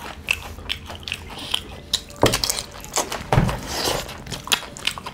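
Two people eating by hand: close chewing and mouth smacks, with fingers working rice and smoked pork porridge on steel plates. Scattered short clicks, and two louder knocks about two and three and a half seconds in.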